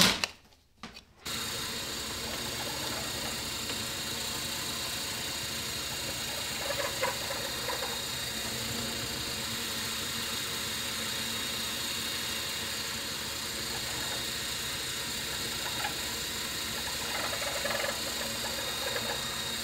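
A wire cutter snips copper antenna wire once at the very start. From about a second in, a drill press motor runs steadily, with small swells in the sound as the bit is worked.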